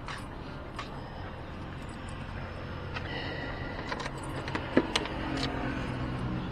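Motorcycle engine running steadily, with scattered sharp clicks, a short high tone about three seconds in, and a loud sharp knock about three-quarters of the way through.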